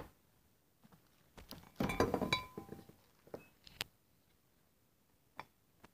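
Handling noise as things are moved about: a cluster of light clicks and clinks about two seconds in, then a few separate knocks.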